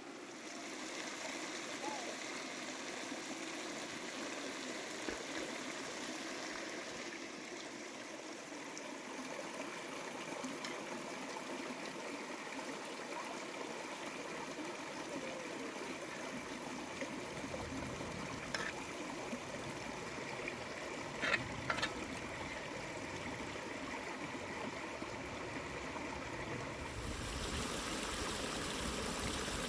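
Steady rush of running water, like a trickling stream, with a few light clicks or taps about two-thirds of the way through.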